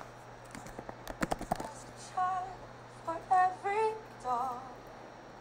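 A quick run of clicks and knocks, then a woman's voice sounds five short, high, wavering notes, soft singing or humming.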